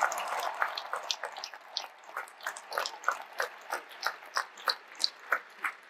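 Applause thinning out to steady single hand claps, about three a second, slowly fading.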